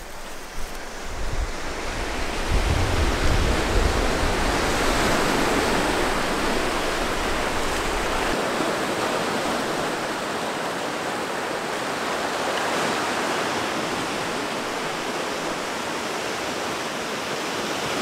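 Ocean surf washing over a rocky shoreline, a steady rushing of waves. A low rumble lies under it for the first eight seconds or so, then drops away.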